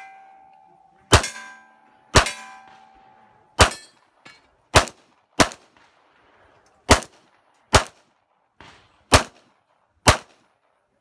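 A semi-automatic pistol firing nine shots, spaced irregularly about a second apart. Metallic ringing from steel targets being hit follows the first few shots.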